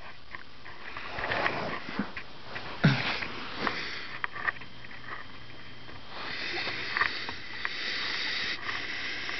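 A person's sniffs and breathing close to the microphone, loudest about three seconds in, with a few light clicks and a stretch of rustling near the end.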